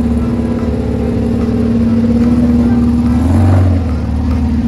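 Engine of a lifted Jeep rock crawler running hard under load as it climbs a steep rock slope, a steady drone with a deep rumble that swells briefly about three and a half seconds in.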